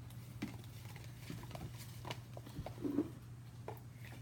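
Faint scattered taps and knocks with a short murmur about three seconds in, over a steady low hum: a child climbing over a stool and reaching behind furniture for a dropped lump of slime.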